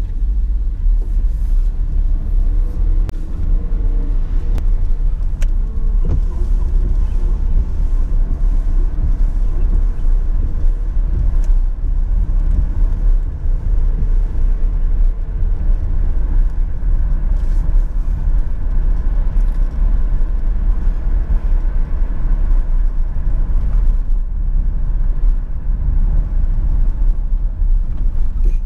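Steady low rumble of a vehicle driving slowly, engine and tyre noise heard from inside the cabin, with a few faint ticks.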